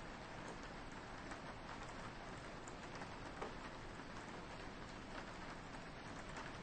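Soft, steady rain, with scattered individual drops ticking against a window pane.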